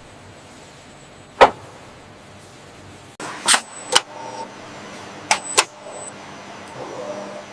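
Several sharp knocks or clicks over a faint steady background hum: one loud one about a second and a half in, then pairs a few seconds later.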